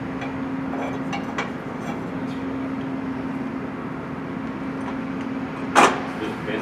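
Hand tools clinking against metal car A/C line fittings, with a few light ticks and one sharp metallic clank near the end, over a steady mechanical hum.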